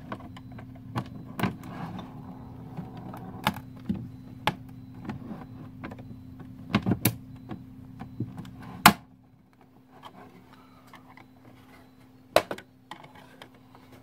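Plastic keyboard case being pried open with a thin tool: scattered sharp clicks and snaps as the tool works at the case's plastic clips, the loudest about nine seconds in and another about twelve seconds in.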